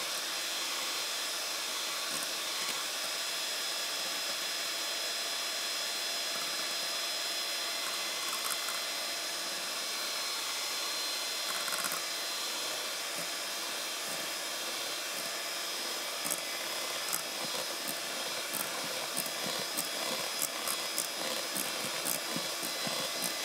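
Electric hand mixer running steadily with a high whine, its beaters whipping cream in a stainless steel bowl, still short of peaks. Scattered sharp clicks come in over the last several seconds.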